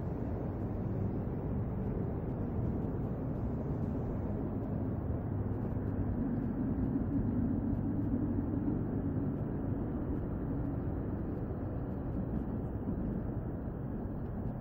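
Steady low rumble of outdoor background noise, swelling a little in the middle.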